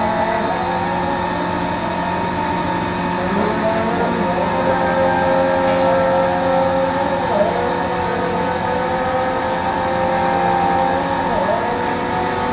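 A steady mechanical drone from an engine or motor, with several held pitches that dip briefly and recover twice in the second half.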